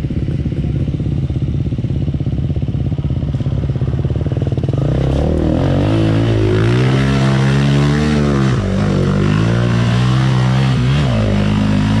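Enduro motorcycle engine running at a steady low speed, then from about five seconds in revving up and down several times, its pitch rising and falling.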